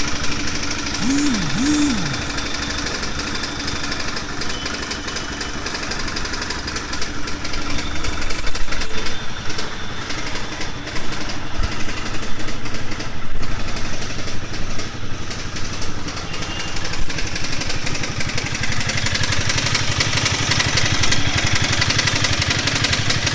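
Honda CBR250R's single-cylinder engine running, with a rattling noise that the owner cannot place.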